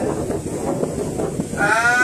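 Low rumbling wind noise on the microphone, then near the end a drawn-out, high, slightly rising bleat-like "aah" call.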